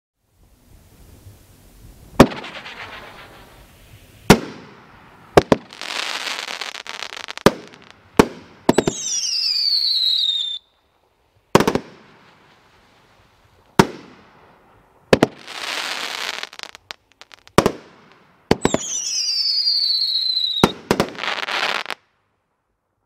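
A multi-shot consumer firework cake firing: about a dozen sharp bangs as shells burst, with stretches of dense crackling between them. Twice a whistle falls in pitch over about two seconds.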